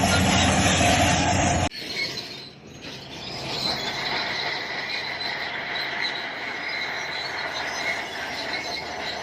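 Bulldozer engine running loud with its steel tracks squealing, cut off suddenly just under two seconds in. After that comes a quieter, steady machine noise with thin high-pitched tones.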